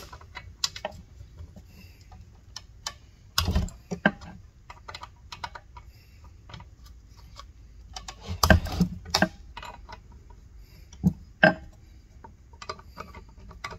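Scattered light metal clicks and clinks as a loose 20-inch chisel chain is tightened and handled on its chainsaw bar. There are a few louder knocks about three and a half and eight and a half seconds in.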